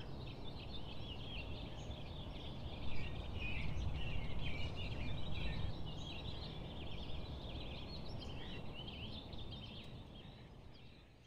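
Outdoor birdsong: many small birds chirping and twittering over a low steady rumble, fading out near the end.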